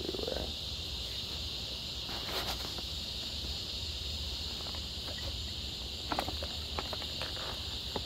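Cicadas droning in a steady high-pitched chorus, with a few short clicks near the dogs around the sixth second.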